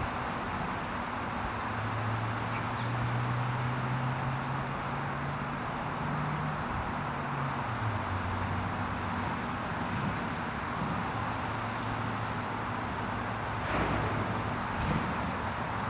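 Distant road traffic: a steady background hiss with a low engine hum that starts about two seconds in, rises and then falls in pitch, and fades near the end. A brief rustle near the end.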